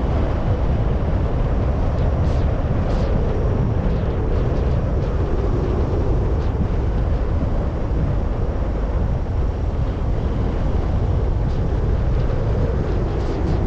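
Car driving, a steady rumble of engine and tyre noise.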